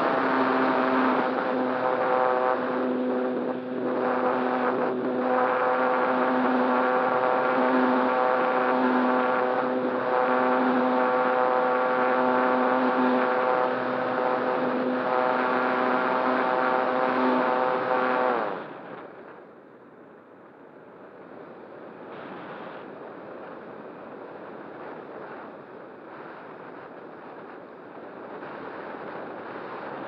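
RC model glider's nose motor and propeller running steadily with a few brief dips, then shut off about two-thirds of the way through, its pitch falling as it spins down. After that, a quieter, even hiss of wind past the airframe as the glider glides unpowered.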